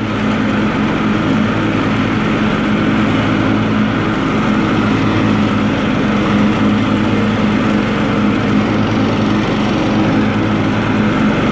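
Cub Cadet 1320 hydrostatic riding lawn tractor with its 12.5-horsepower replacement engine running steadily as it drives across grass, with the mowing deck engaged and clearly audible.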